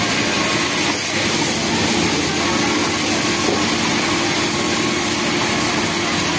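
Steady din of a garment factory sewing floor: many industrial sewing machines running at once, with a steady hum under the noise.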